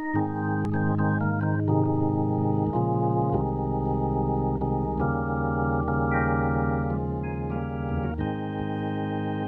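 Organ playing slow, sustained chords over a deep bass line, the chords changing every second or two.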